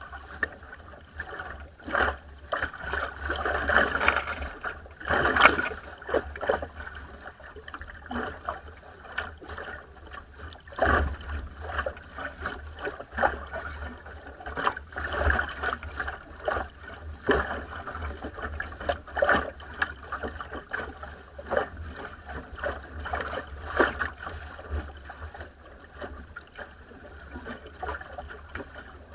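Bow of a small wooden sailing dinghy rushing and splashing through choppy water, with irregular louder splashes every second or two as the hull slaps into small waves.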